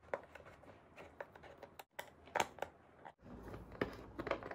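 Hand-work handling noise: a run of short clicks, taps and rustles, broken twice by abrupt cuts to silence.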